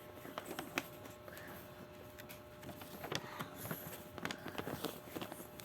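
Sheet of paper being handled and folded: scattered soft crinkles and small taps, with a sharper click a little under a second in.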